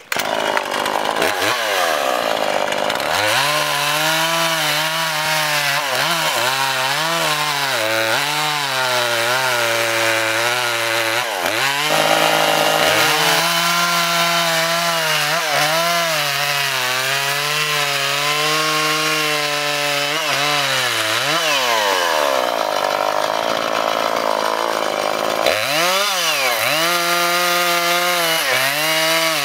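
Two-stroke chainsaw running at high revs while cutting into a log. The engine pitch wavers under load, and several times it drops sharply and climbs back up as the throttle is eased and reopened.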